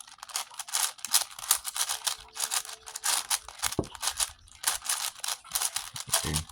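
Plastic puzzle cubes clicking and clattering as they are handled and turned: a rapid, irregular run of sharp plastic clicks.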